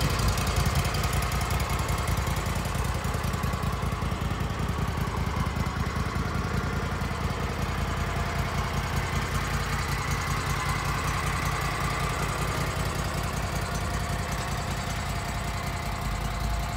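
Grasshopper 618 zero-turn mower's engine running steadily.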